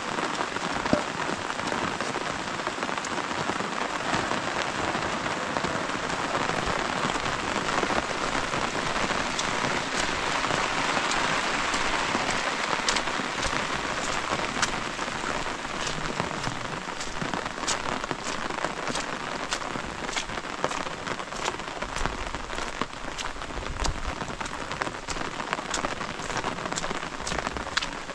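Steady rain falling on the ground and nearby surfaces, with sharp single-drop ticks that come more often in the second half.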